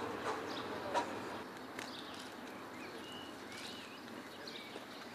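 Outdoor ambience: a steady background hiss with several short high bird chirps and a few sharp clicks, the loudest about a second in.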